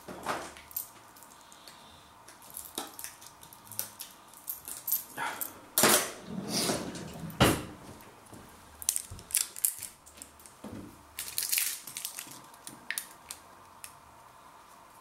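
Handling noises: scattered clicks, knocks and plastic rustling as a plastic squeeze bottle of Sriracha hot chilli sauce is fetched and its sealed cap is worked at to open it. The loudest sharp knocks come about midway.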